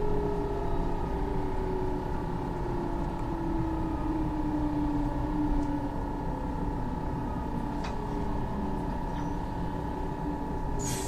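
Inside a train braking for a station stop: a steady rumble with a faint constant tone, and a motor whine that falls slowly in pitch over the first six seconds as the train slows. A few faint clicks follow near the end.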